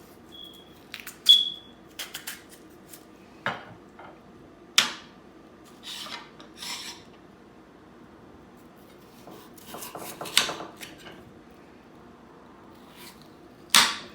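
Kitchen knife cutting potatoes on a cutting board: irregular sharp knocks of the blade on the board and short scrapes, with a brief high clink twice near the start.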